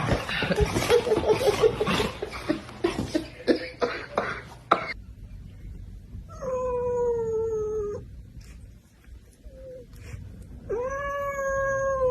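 A cat yowling: two long, drawn-out calls of about two seconds each, the first sliding slightly down in pitch. They follow a few seconds of scuffling, clattering noise.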